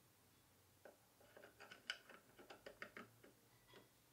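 A quick run of small, sharp clicks and taps as hard statue parts are handled and fitted together: a weapon piece being pushed into a figure's hand. The clicks start about a second in, are loudest near the middle, and die away near the end.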